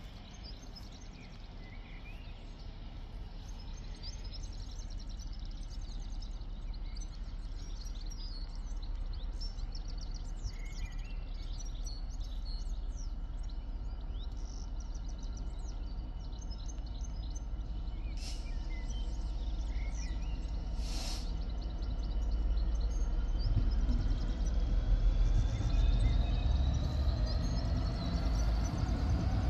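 Class 66 diesel locomotive approaching, its low engine rumble growing steadily louder, with a whine rising in pitch over the last several seconds. Small birds chirp over it.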